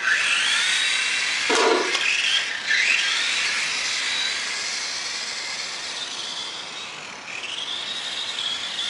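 Electric radio-controlled truck's motor whining high, its pitch rising and falling with the throttle, over a hiss of tyres on the wet pavement. A brief thump about a second and a half in.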